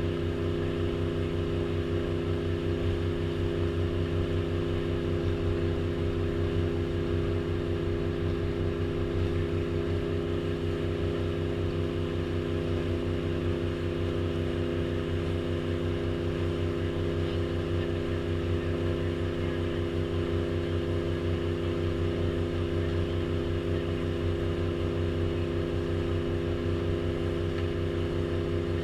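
Tour boat's engine running steadily under way: a constant low drone with a steady hum of tones above it, unchanging in pitch and level.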